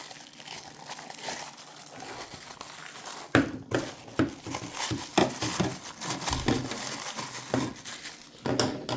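Plastic packaging crinkling and rustling as wrapped parts are pulled out of a humidifier tank and handled. Sharper crackles and knocks come irregularly from about three seconds in.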